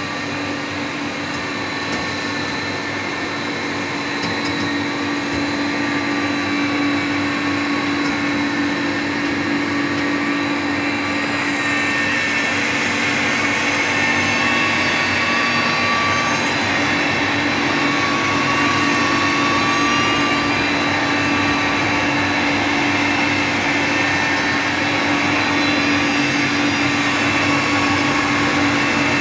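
Double-cavity PVC trunking extrusion line running: a steady machine hum with several held tones over an even hiss, growing a little louder over the first half.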